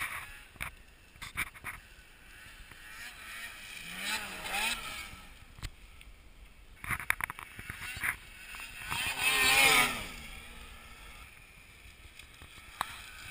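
Two-stroke snowmobile engines revving up and down in two bursts, the louder one about nine to ten seconds in, with scattered knocks from the bumpy ride.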